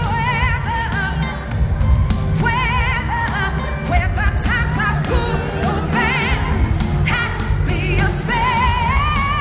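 Live band playing a slow pop song while a singer holds long notes with a wide vibrato.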